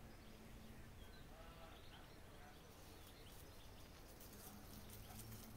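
Near silence: a faint outdoor background with a low steady hum and a few faint, short, high calls.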